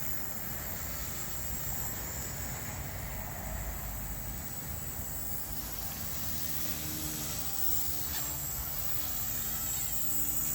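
Blade 150S collective-pitch electric RC helicopter flying circuits, its motors giving a steady whine under wind rumble on the microphone.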